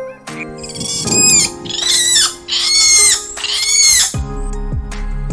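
A monkey calling: about four loud, high, shrill calls in a row, each rising and then falling in pitch, over light background music.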